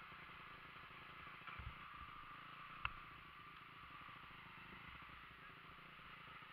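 Near silence with a faint steady background. A few soft knocks come about a second and a half in, and one sharp click comes just before the three-second mark.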